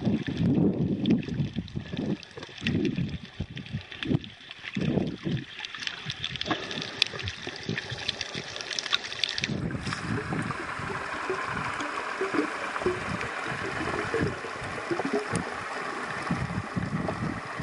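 Muffled underwater water noise picked up by a camera below the surface: irregular low surges of water moving and sloshing. About ten seconds in, a steadier hiss joins it.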